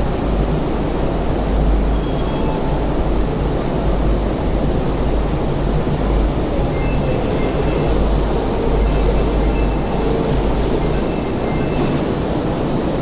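Odakyu commuter train standing at an underground platform: a steady low rumble from the train and station. Short high beeping tones come and go in the second half, and there are a couple of light clunks as the train doors and then the platform screen doors close.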